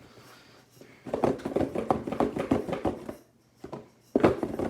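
Packages being handled by hand: a quick run of knocks and rustles for about two seconds, then another short clatter near the end.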